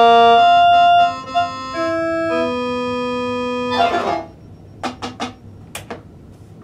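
Small electronic keyboard playing held notes that stay level without fading, the chord changing a few times, then breaking off about four seconds in with a brief noisy clatter. A few sharp clicks follow.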